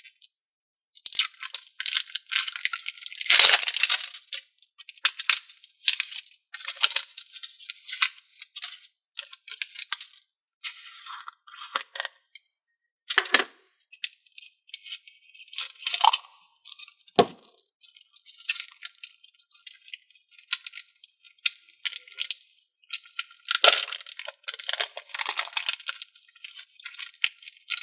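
Hammerhead shark slime being squeezed, stretched and folded by hand, giving wet squelching, crackling and popping noises in irregular bursts with short pauses between them.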